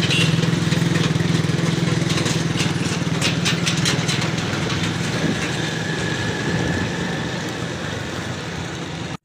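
A motor vehicle engine running steadily close by, slowly fading away amid street traffic, with a few short clicks about three seconds in.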